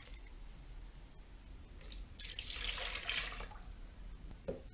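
Liquid being poured into a plastic mixing bowl: a splashing pour lasting about a second and a half, from about two seconds in. A light knock follows near the end.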